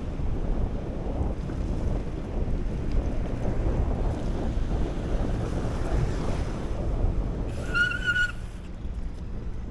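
Wind buffeting the microphone over the hiss of mountain-bike tyres on a wet, slushy road while riding. About eight seconds in, a brief high-pitched squeal rings out for under a second, after which the rushing eases slightly.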